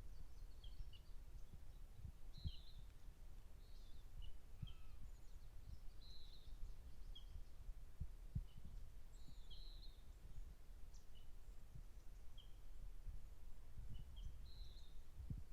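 Small birds chirping, short high chirps and brief calls every second or so, over the low rumble of wind on the microphone.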